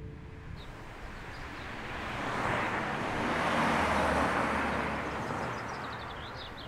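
A car driving past on a street: tyre and engine noise swells to a peak about four seconds in, then fades away.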